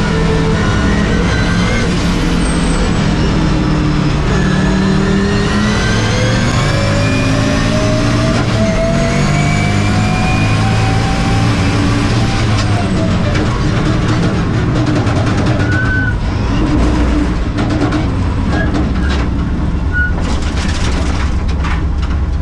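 Race car engine heard from inside the cabin under hard acceleration, its note climbing in pitch through the revs. About halfway through the engine note falls away, and the car runs onto the grass with repeated knocks and rattles from the body and chassis.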